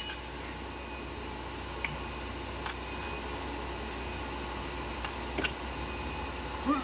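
A few light clicks of the rocker arms being rocked by hand on the stopped Hindustan 2021D loader diesel engine, checking valve clearance during tappet setting, over a steady background hum.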